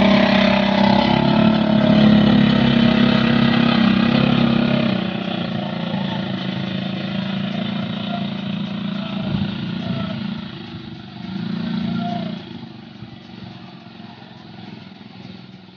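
Small off-road vehicle engines of an ATV and a buggy running as they drive over a dirt track. Loudest for the first five seconds, then lower, with a brief rise about twelve seconds in before fading.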